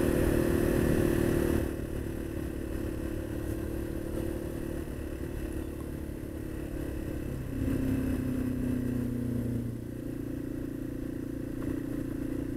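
Yamaha XT225's single-cylinder four-stroke engine running steadily while the bike rides a gravel road. The higher rushing noise drops away about two seconds in, and the engine settles to a quieter note. About eight seconds in, the engine note drops in pitch and gets louder for a couple of seconds, then returns to its steady note.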